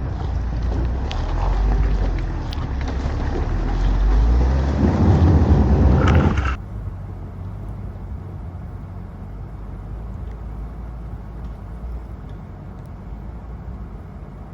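Truck engine running on a snowy off-road trail under heavy wind noise on the microphone, with scattered sharp clicks. About six and a half seconds in it cuts off abruptly to a quieter, steady low rumble.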